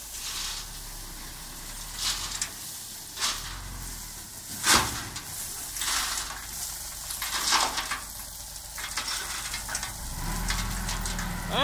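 Crushed rock aggregate pouring out of the tipped bed of a ten-wheel dump truck as it creeps forward. It makes a continuous gritty hiss with scattered louder clatters of falling stones, over a low engine rumble.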